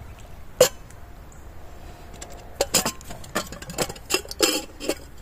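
Camping cookware and utensils clinking and knocking while tea is being made: one sharp knock a little over half a second in, then a run of lighter clinks and taps from about two and a half seconds on.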